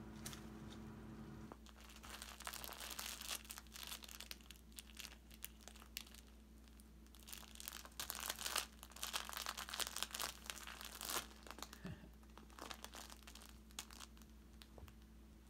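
A kitten wrestling with a KONG Kickeroo fabric kicker toy, making irregular bouts of crinkling and rustling, busiest about eight to eleven seconds in.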